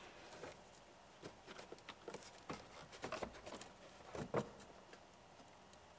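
Plastic dash vent tubes being handled and fitted, making faint scattered clicks and taps with a louder knock about four seconds in.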